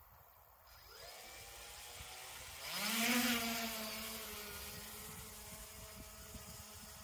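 Bicopter drone's two motors and propellers spin up with a rising whine about a second in, then throttle up sharply for takeoff, loudest just before the middle. After that they settle into a steady, pitched whine that slowly fades as the craft climbs away.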